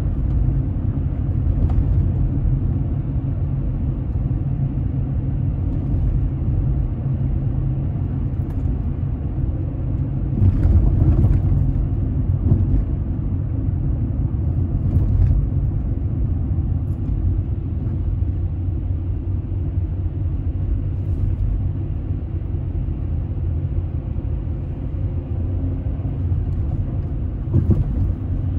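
Steady low rumble of a car driving on a city street, heard from inside the car: tyre and engine noise. It swells louder about ten seconds in, and there is a short knock near the end, like a wheel going over a bump.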